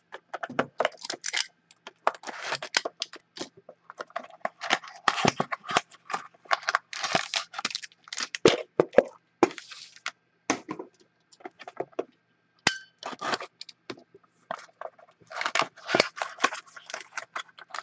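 Foil wrappers and cardboard boxes of Topps Museum Collection trading-card packs crinkling and rustling as they are handled and unwrapped, a run of irregular crackles and clicks.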